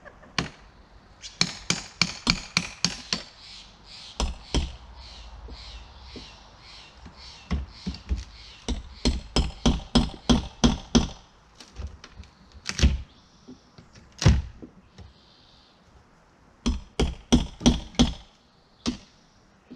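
Hammer striking the old T1-11 wood siding and its nails in quick runs of sharp blows, about four to five a second, with pauses between runs and a few single heavier blows, as the panels are worked loose from the wall.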